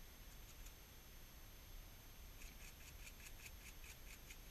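Faint scrubbing of a stiff-bristled brush on the metal half-nut guide of an Atlas lathe, in quick short strokes, several a second, that pick up about two seconds in.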